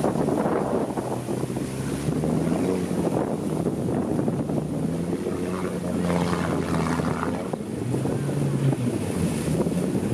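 Land Rover Discovery wading slowly through a deep water splash: its engine runs at steady low revs, pitch shifting slightly a few times, over the rushing wash of water pushed along its sides. Wind buffets the microphone.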